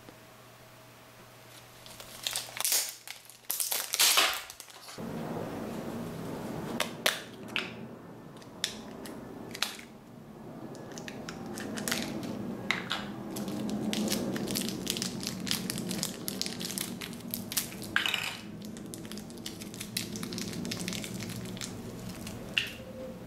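Plastic shrink wrap being crinkled and torn off a pack of plastic collet boxes, loudest about two to four seconds in. After that come short clicks as the small plastic boxes are opened, and thin plastic bags crinkling as ER11 collets are taken out.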